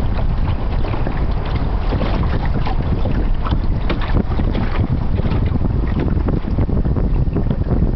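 Wind buffeting the microphone on a moving sailboat, a steady low rumble, with many short splashes of water along the hull.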